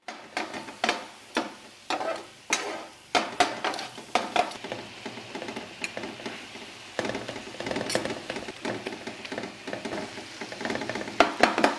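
A metal spatula scraping and knocking on a tawa while chicken and masala sizzle in oil. Sharp strokes come about twice a second at first; from about seven seconds a steadier sizzle takes over, and the strokes come again near the end.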